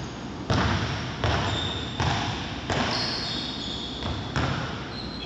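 Handballs bouncing on a wooden sports-hall floor: about five sharp, irregularly spaced thuds, each with a hall echo.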